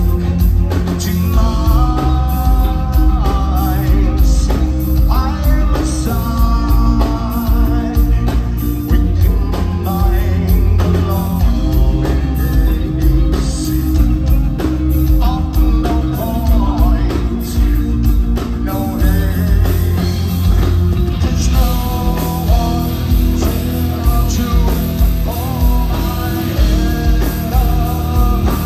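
Heavy metal band playing live: electric guitars, bass and drums, loud and dense, with a singer's voice over them.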